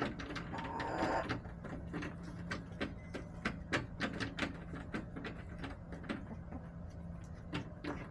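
Chickens pecking at a hard surface: sharp, irregular taps and clicks, several a second, over a steady low hum.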